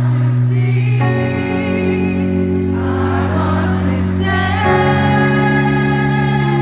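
Live band music: sustained synth chords that change about a second in and again near five seconds in, with voices singing over them.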